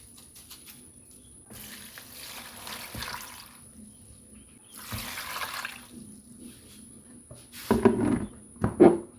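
Water poured or running in two short spells, then two louder, rougher sounds near the end.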